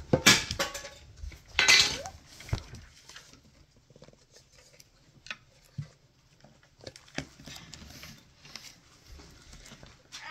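Small metal card tins and their packaging being handled and pried open: two loud crinkling scrapes in the first two seconds, then scattered light clicks and clinks.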